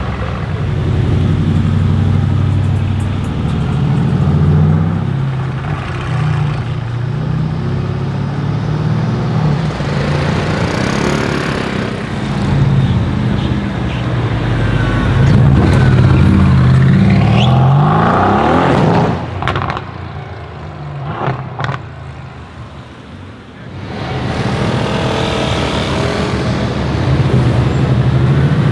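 Mercedes-AMG GT S twin-turbo V8 running loud through a straight-pipe exhaust. About two-thirds of the way in it revs up in a rising sweep that cuts off sharply, followed by a few sharp pops and crackles from the exhaust while it is quieter, then the engine note is loud again near the end.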